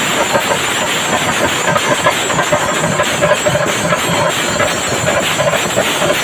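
Chenda melam: a large ensemble of chenda drums beaten with sticks, with ilathalam cymbals clashing, forming a loud, dense, continuous wall of strokes.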